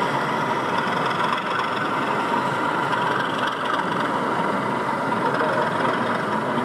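Diesel locomotive engine sound running steadily from a DCC sound-fitted 00 gauge model diesel locomotive's small speaker.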